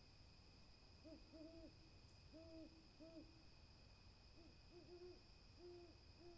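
Owl hooting in two short series of low hoots, the first starting about a second in and the second past the middle. A faint steady high-pitched tone runs underneath.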